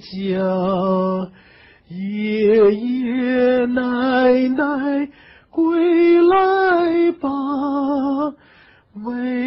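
A man singing a Mandarin song unaccompanied, in long held notes with vibrato, in three phrases with short breath pauses between them.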